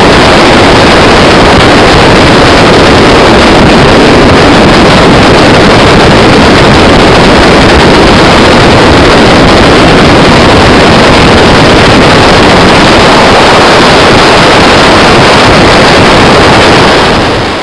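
Edge Marine Velocity LS 21-foot jet boat under way, heard from on board: a loud, steady rush of wind on the microphone, water and engine, with no change in pace. It starts fading out right at the end.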